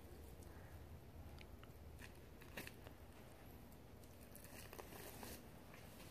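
Faint crackles and short clicks of a knife slicing and hands pulling a deer backstrap away from the backbone, over a low steady hum.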